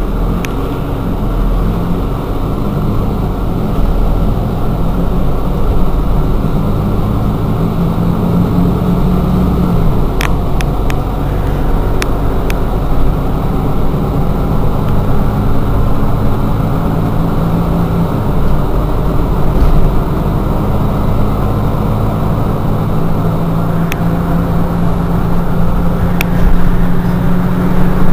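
Mercedes-Benz Citaro G articulated bus idling at a standstill: a steady low engine rumble, with a few light clicks about a third of the way in and again near the end.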